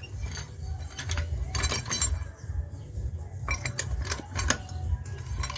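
Metal tools clinking and knocking in irregular sharp clicks as a wheel spanner is handled and set to the wheel nuts, over a steady low rumble.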